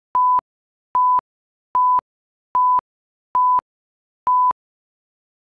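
Six short electronic beeps, each one steady mid-pitched tone, evenly spaced a little under a second apart; the last comes about four and a half seconds in.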